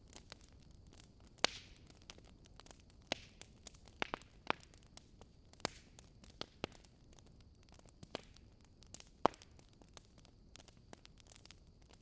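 Wood bonfire crackling: irregular sharp pops and snaps over a low steady hiss, with a louder pop about a second and a half in and another about nine seconds in.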